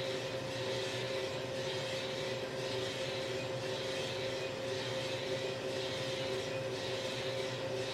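Small drum coffee roaster running during a roast: a steady mechanical hum from its drum motor and fan, with two held tones and an even rush of air.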